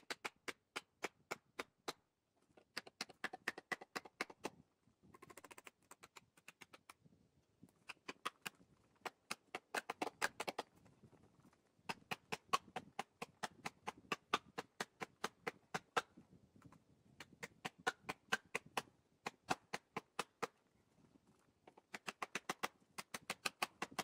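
Felling wedges being hammered into the back cut of a large tree: a rapid run of sharp knocks, about four a second, in bursts of a few seconds with short pauses between them.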